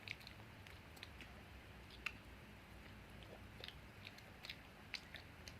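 Faint chewing of a chewy sausage, with a scattering of soft, wet mouth clicks.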